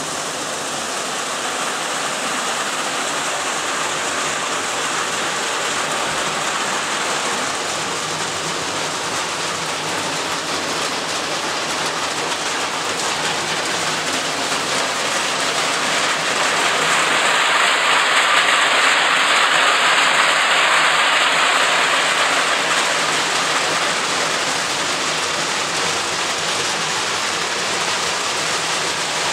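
Hail and heavy rain drumming on clay-tiled roofs in a dense, steady hiss. It swells louder for a few seconds past the middle, then eases back.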